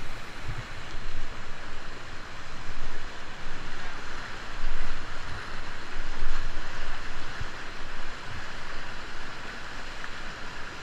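Whitewater rushing and splashing close around a kayak going over a small rocky drop, with several louder splashing surges and low buffeting thumps on the microphone.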